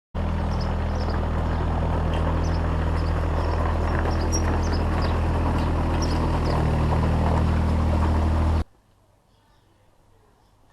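Engine running steadily at a constant speed, with faint high chirps over it; it cuts off suddenly about eight and a half seconds in.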